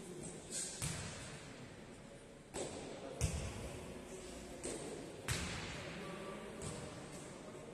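A ball striking hard on an indoor sports court, about four loud sharp thuds and a few softer ones spread irregularly, each ringing out in the hall's echo.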